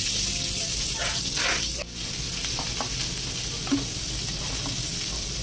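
Freshly chopped onions sizzling in hot oil in a stainless steel kadai, a steady loud hiss, while a perforated steel ladle stirs and scrapes them around the pan.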